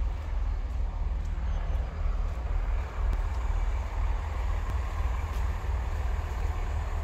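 Chiltern Railways diesel multiple-unit train running at the station, its steady engine sound growing a little from about halfway through, over a low wind rumble on the microphone.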